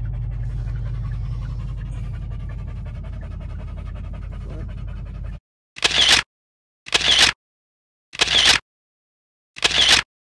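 Steady low rumble of a car's cabin, cut off about five seconds in. Then a dog panting in four short bursts, each about half a second long and about a second apart, with silence between them.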